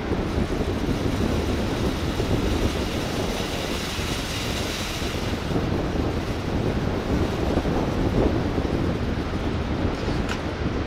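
Wind buffeting the microphone: a steady rushing noise with an uneven low rumble, and a faint click near the end.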